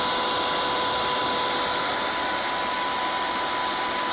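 Cooling fan of a Resanta SAI-280 welding inverter running with a steady rush of air, with a thin steady tone alongside. The inverter powers up now that its two suspected shorted power transistors are desoldered.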